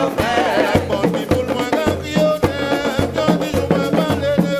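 Live Guadeloupean drum-and-voice music: hand drums beat a steady, driving rhythm under a bass line, with sung voices on top.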